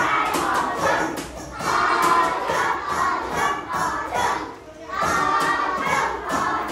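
A group of voices talking and shouting over one another, lively and overlapping, with brief lulls.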